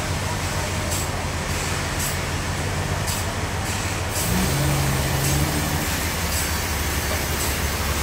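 Sawmill machinery running steadily: the band sawmill with a forklift's engine running close by. A low hum steps up in pitch about four seconds in, and a faint high tick recurs about once a second.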